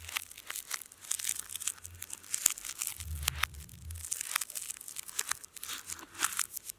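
Dense crackling and crinkling: many sharp clicks and tearing sounds in quick, uneven succession, played in reverse.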